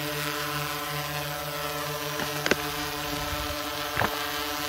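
Small quadcopter's electric motors and propellers humming steadily as it descends to land under autopilot. A few short clicks come about two and four seconds in.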